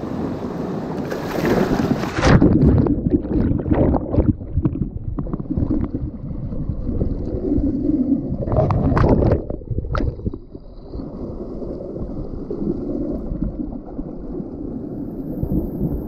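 Rushing whitewater splashing against an inflatable kayak as it is carried through rapids. There are loud surges of splashing in the first few seconds and again about nine seconds in, then a steadier, quieter rush of water.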